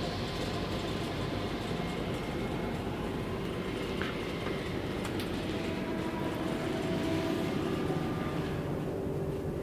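Steady running noise of a moving passenger train heard from inside the coach: a low rumble of wheels on track, with faint clicks and thin squealing tones.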